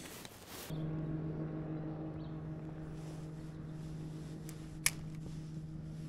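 A boat motor humming steadily at one constant pitch, starting about a second in, with a single sharp click shortly before the end.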